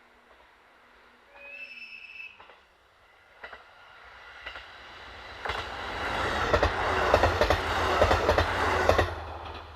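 A diesel railcar passes close by: its rumble builds up, then rapid clickety-clack of wheels over rail joints at its loudest, before it drops off quickly near the end. A short high-pitched tone sounds about two seconds in.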